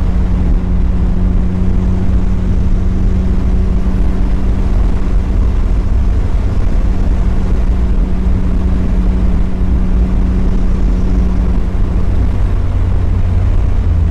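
Mazda Miata's four-cylinder engine running at a steady cruise, a constant low drone over tyre and road rumble.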